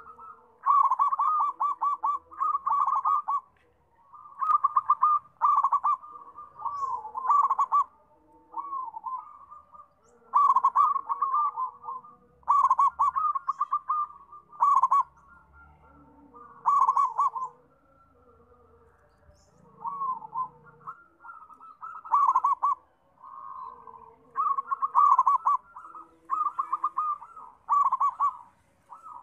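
Zebra dove (perkutut) cooing: repeated phrases of fast, rolling coo notes, each phrase a second or two long, separated by short pauses.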